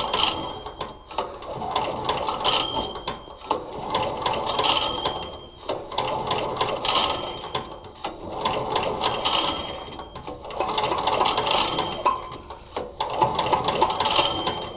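Recoil pull-starter of a 168F 196cc single-cylinder air-cooled diesel pulled slowly seven times, about one pull every two seconds. Each pull is a rattling whir of the rope and starter pawls with a brief high squeak, the engine turning over freely with the compression release held open and not firing: the pulls are priming fuel to the injector.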